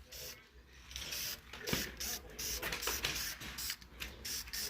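Aerosol spray can hissing in a series of short bursts, as vinyl paint is sprayed onto a door panel.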